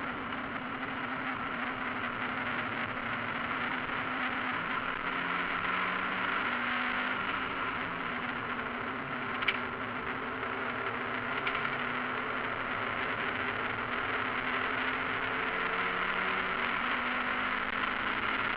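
Mazda MX-5 race car's four-cylinder engine running hard at racing speed, heard from inside the cockpit over a steady rush of wind and road noise. The engine note rises and falls slightly, and there is one sharp click about halfway through.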